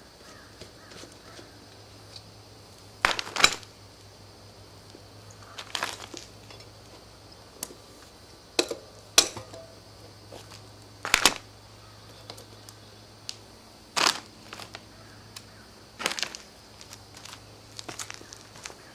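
Sharp metallic clicks and knocks, one every two or three seconds, from a chain whip and cassette lockring tool being worked on a bicycle's rear cassette as the lockring is loosened.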